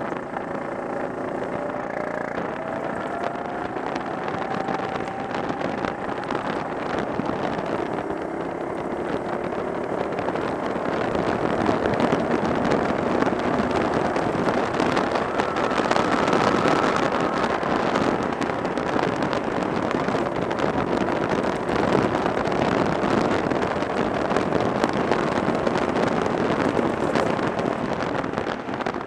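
Go-kart engine running hard on track as heard from on board, its note climbing steadily over the first few seconds as it accelerates. From about a third of the way in it gets louder and is mixed with a rush of wind noise on the microphone.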